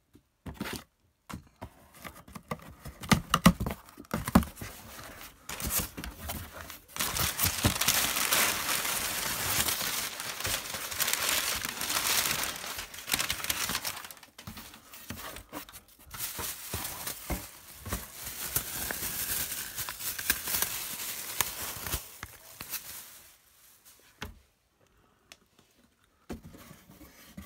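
A cardboard shipping box being opened and unpacked by hand: a few handling knocks in the first seconds, then long stretches of tearing and crinkling packaging that die away near the end.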